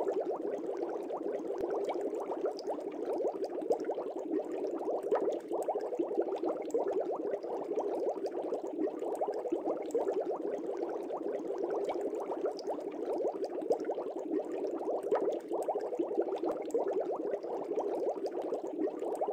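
Steady bubbling water, a dense, even stream of small bubbles.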